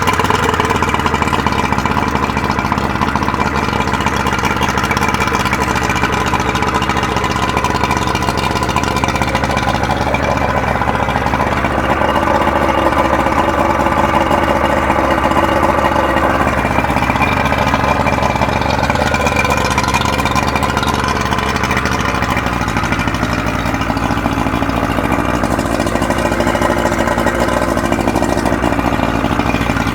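Yamaha 90 hp outboard motor running steadily at idle, its note shifting slightly about two-thirds of the way through.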